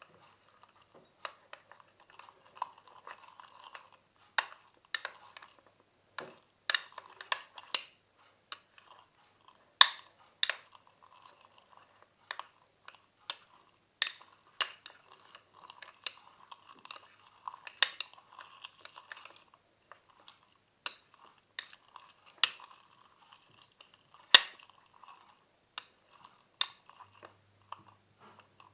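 Coloured-glue slime being stirred and worked in a bowl as borax water is added: sticky, crackling squelches broken by irregular sharp clicks of a spoon against the bowl.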